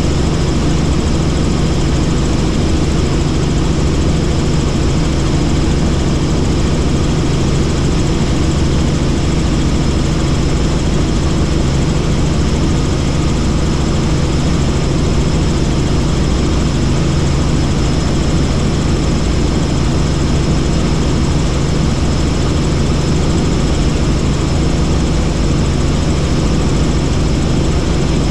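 Helicopter in flight: steady, loud rotor and engine noise with a constant low hum and a thin high whine, unchanging throughout.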